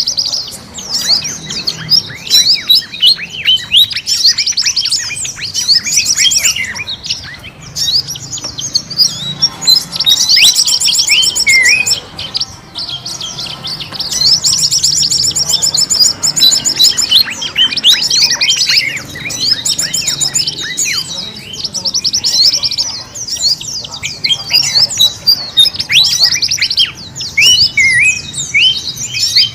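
Many small forest birds chirping and twittering at once, a dense busy chorus of quick high-pitched notes that often sweep downward, played as a bird-trapping lure (pikat) call recording.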